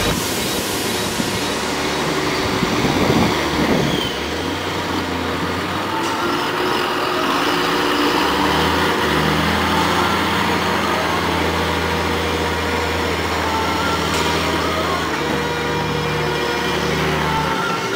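John Deere tractor's diesel engine running steadily as it hauls a loaded silage trailer, its note shifting about 4 seconds in, again about 9 seconds in, and near the end.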